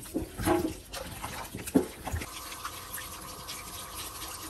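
Hands working raw goat meat in a stainless steel sink with a few irregular handling sounds. About two seconds in, a kitchen tap starts running steadily over the meat as pieces are rinsed and rubbed clean under the stream.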